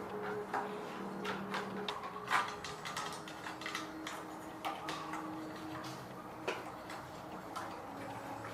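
Irregular small clicks and taps of hand tools and small parts being handled during repair work, over a faint steady low hum.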